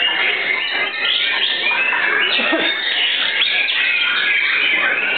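A chorus of caged white-rumped shamas singing at once: many overlapping whistled phrases and rapid chattering notes, continuous and fairly loud.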